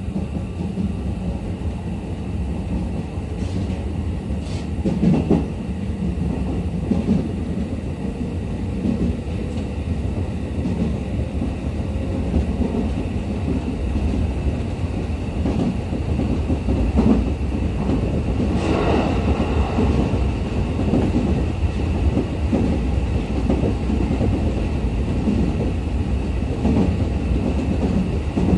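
Running noise inside a JR East E501 series electric train at speed: a steady low rumble with a faint steady high tone, and wheels clicking and knocking over rail joints now and then.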